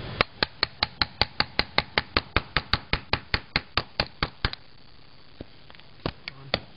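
Rapid, evenly spaced chopping knocks, about five a second, of a blade hacking at a white-crusted lump of sodium metal; they stop a little past halfway and start again near the end.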